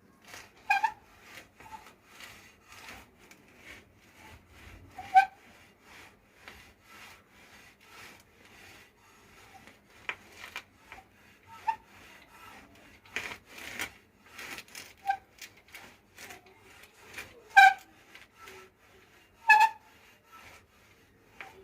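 A geared bicycle's handlebar creaking and rubbing with irregular clicks, broken by short, sharp squeaks at intervals; the loudest come about a second in, around five seconds, and twice near the end. It is the unwanted noise coming from the handlebar area.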